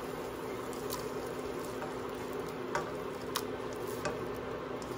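Oil sizzling steadily in a hot nonstick wok, with a few light ticks and scrapes as a silicone spatula moves half-cooked scrambled egg around the pan.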